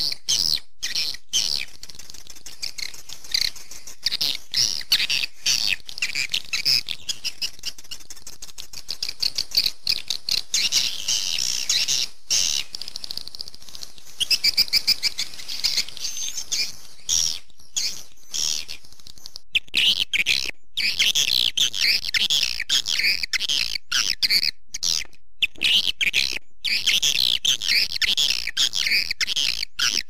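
Edible-nest swiftlets twittering in a dense, fast chatter of high chirps, broken by many short gaps. This is a swiftlet lure call (suara panggil walet), the recording played at nesting houses to draw swiftlets in.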